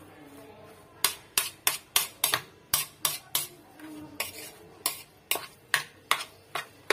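A metal spoon clicking and scraping against a bowl while stirring a chopped offal, herb and spice filling. The quick, irregular taps start about a second in and run at roughly three a second.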